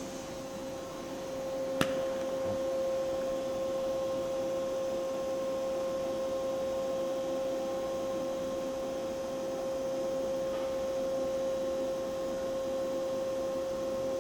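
Milltronics RH30 vertical machining center standing powered up: a steady electrical hum with one clear, high-pitched tone. A single sharp click comes about two seconds in, after which the hum is a little louder.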